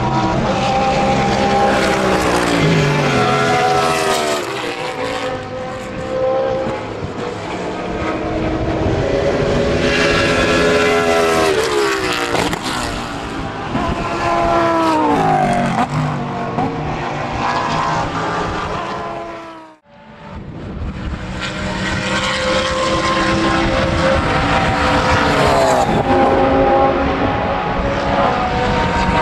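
GT race cars at full racing speed, several passing in turn, each engine note sweeping and then falling in pitch as the car goes by. The sound drops out sharply for a moment near the two-thirds mark, then another engine picks up.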